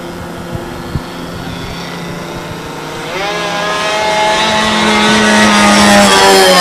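Radio-control P-51 Mustang model's carbureted engine running in flight, a steady tone that rises in pitch about halfway through and grows much louder toward the end as the plane comes closer. The engine is not reaching full throttle, which the pilot blames on the carburetor.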